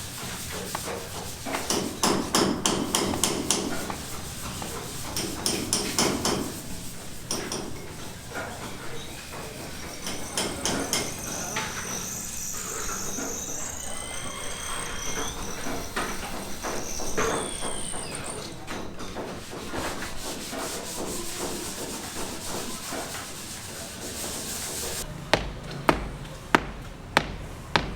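Building-site work: tools scraping and rubbing on building materials with scattered knocks, then a run of regular hammer blows, about two a second, near the end.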